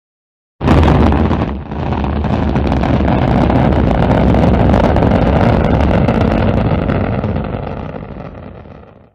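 Rocket engines roaring during a launch: a loud, deep, steady rumble that starts abruptly about half a second in, dips briefly, then holds and fades away near the end.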